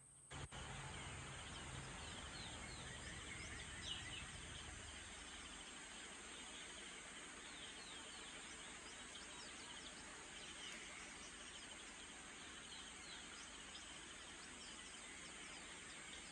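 Faint dawn ambience: a steady background hiss with many small birds chirping in short, high notes. A low rumble underneath fades out about five seconds in.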